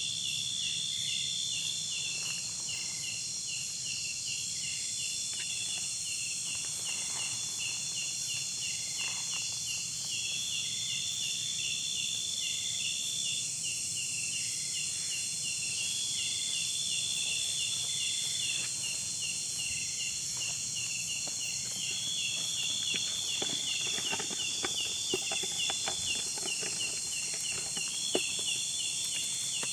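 A chorus of insects trilling steadily, with a fast, regular chirping underneath. A higher buzzing call swells for a few seconds and stops, again and again, about every five or six seconds. Faint small ticks and rustles come in during the second half.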